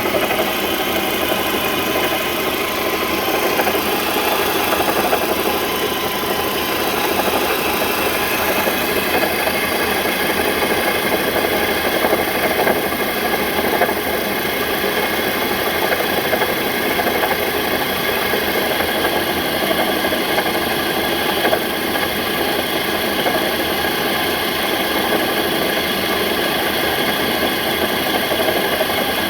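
2006 Volvo XC90 T5's turbocharged five-cylinder engine idling steadily, with several steady tones over the running noise. It is the unusual noise that began a day earlier and that the owner has not traced to the belts or pulleys, which look in order.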